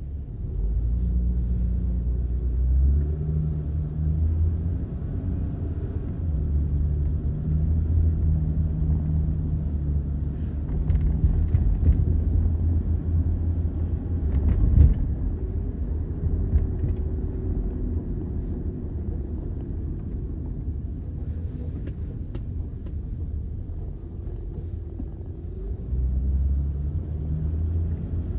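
Car driving, with steady engine and road rumble and low bass notes that shift pitch every second or so. A sharp thump about fifteen seconds in, like a wheel going over a bump.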